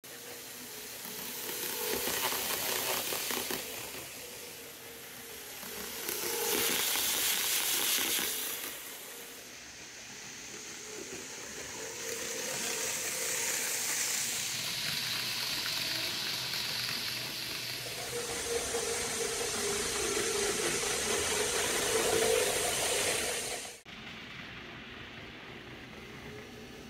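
N gauge Eurostar model train running on its track: an even hiss of wheels on rail with a faint motor whine, swelling several times as it passes close, and dropping suddenly to a quieter level near the end.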